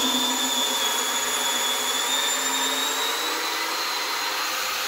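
Milwaukee M18 compact brushless drill driver running steadily in reverse, backing a long GRK screw out of a wooden beam. Its motor whine rises slightly in pitch toward the end as the screw loosens.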